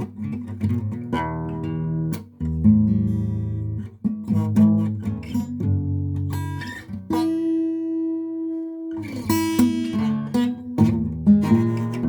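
Guitar playing a blues instrumental: struck chords and picked notes, with one note held for about two seconds a little past the middle.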